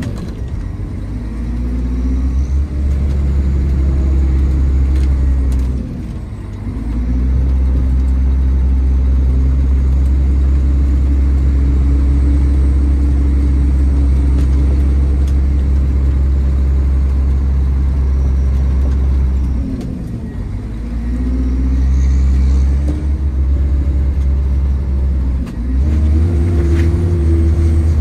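PistenBully 600 Park snow groomer's diesel engine heard from inside the cab, running steadily under load while the front blade pushes snow. The engine note dips briefly about six seconds in and again about twenty seconds in, then revs back up.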